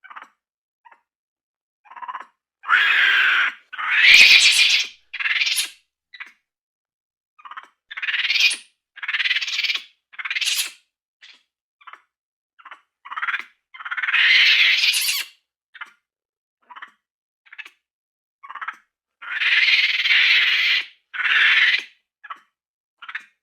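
Compsognathus dinosaur sound effects: a string of short chirping and squealing calls, a few sweeping up in pitch, separated by silent gaps. Longer calls come a few seconds in, midway and near the end.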